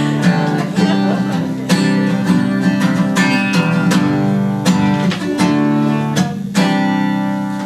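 Acoustic guitar strummed solo, a repeating pattern of chords that ring on between strokes.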